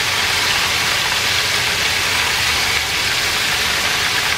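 Shrimp deep-frying in very hot oil: a loud, steady sizzle of vigorously bubbling oil with a low rumble underneath.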